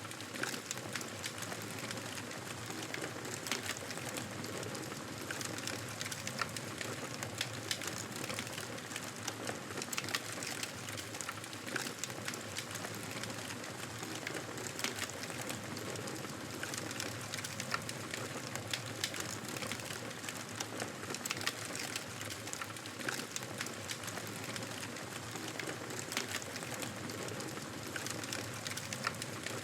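Wood fire crackling in a fireplace: a steady soft hiss with frequent sharp, irregular pops and snaps.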